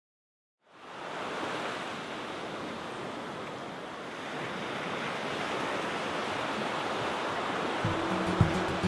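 Sea waves washing in a steady rush that fades in from silence. Music with a low, pulsing bass line starts near the end.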